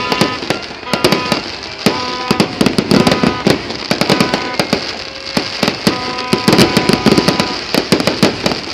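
Fireworks bursting in rapid, dense succession, many sharp bangs and crackles a second with no let-up.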